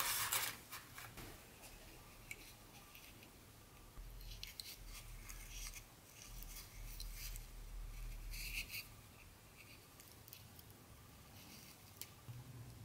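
Gloved hands handling small plastic model train pieces in a foam packaging tray: a burst of rustling and clicking at the start, then bouts of scratchy rubbing of plastic and cotton glove, and a few light clicks near the end.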